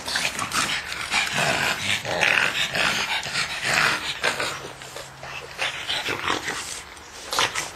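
Pug puppies play-fighting and growling: a rapid, rough run of short noisy sounds.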